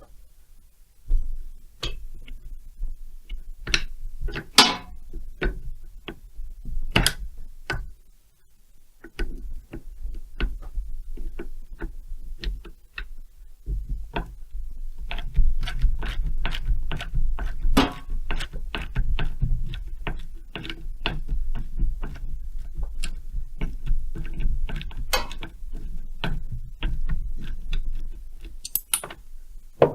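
Hand tools and metal parts clicking and tapping during a chainsaw strip-down: irregular sharp clicks, sparse at first, then coming thick and fast over a low rumble for the second half.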